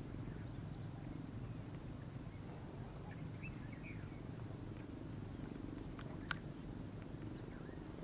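Steady high-pitched insect drone, with a few faint bird chirps about three seconds in and a single sharp click a little after six seconds.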